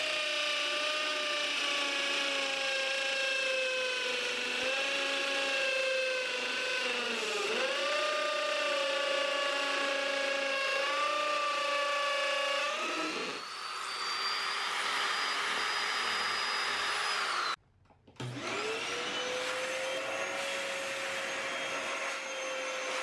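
Hammer drill boring into a concrete slab for a masonry screw, its motor whine sagging and recovering under load. It stops for a moment about 17 seconds in, then starts again and spins back up.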